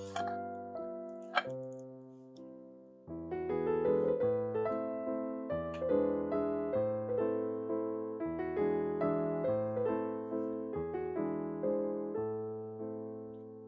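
Gentle background piano music, chords and melody with notes that ring and fade, thinning briefly about two seconds in before picking up again. A couple of short clicks sound in the first second and a half.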